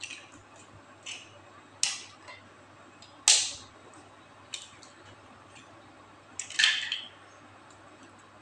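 Eggs being cracked on the rim of a bowl: a series of sharp taps and shell cracks, the loudest a little over three seconds in, with lighter knocks as the shells are handled, and a short clatter later on.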